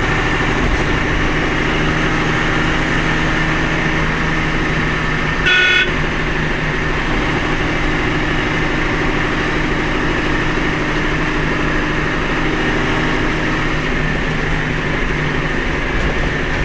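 A vehicle's engine running steadily while driving, heard from inside the cab. One short horn toot about five and a half seconds in.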